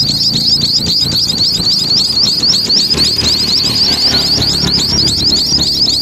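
Rapid, even run of high-pitched chirps, about nine a second, typical of nestling songbirds begging in the nest, over a low rumble of road traffic.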